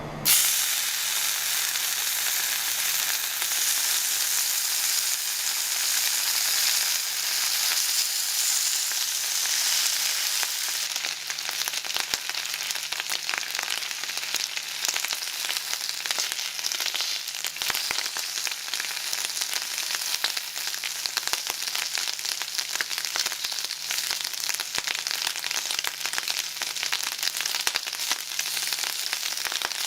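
Food frying in hot oil in a pan: a dense, steady crackling sizzle that starts suddenly and continues throughout.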